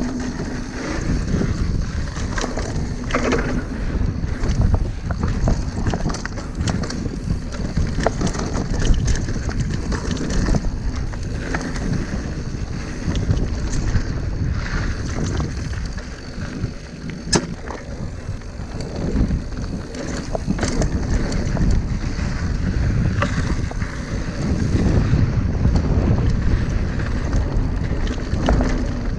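Mountain bike riding fast down a dirt trail: a steady rush of wind on the microphone and tyres rolling over dirt, with frequent sharp rattles and knocks as the bike goes over bumps.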